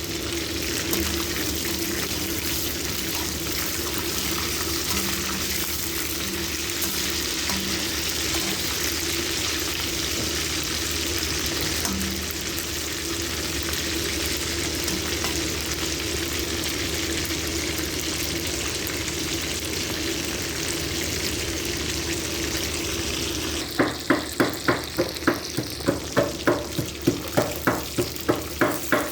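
Chicken karahi sizzling steadily as it fries in oil. Near the end, a quick, regular stirring starts, about three or four strokes a second, as a spatula works through the pan.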